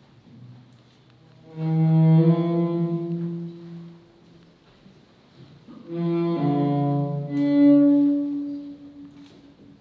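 Cello played with the bow: two slow phrases of long held notes, the first starting about one and a half seconds in, the second about six seconds in, with near quiet between them.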